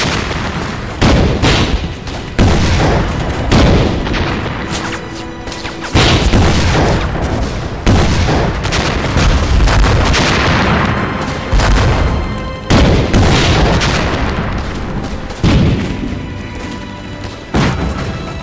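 A barrage of shell explosions going off one after another, about a dozen blasts each roughly one to two seconds apart, with gunfire among them, over a dramatic music score.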